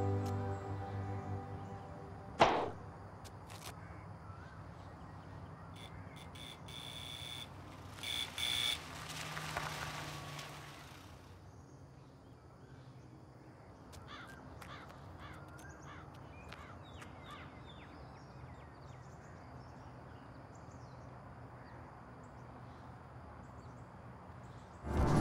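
Music fades out, leaving quiet outdoor ambience with birds calling in short chirps. A single sharp knock comes about two and a half seconds in, and a brief rush of noise about ten seconds in.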